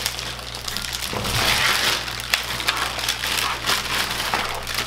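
Keyboard packaging being handled: a continuous crinkling and rustling with many small crackles as the keyboard is taken out of its wrapping.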